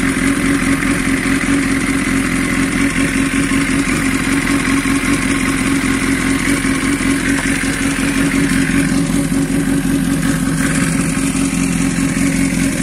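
Sport motorcycle engine running steadily under way at a slow riding pace, its exhaust loud.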